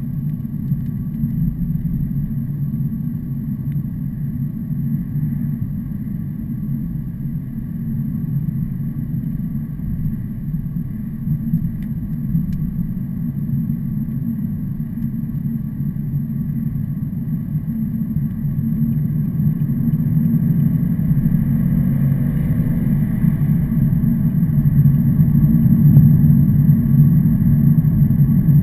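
Heavy truck engine droning steadily, growing gradually louder over the last ten seconds or so.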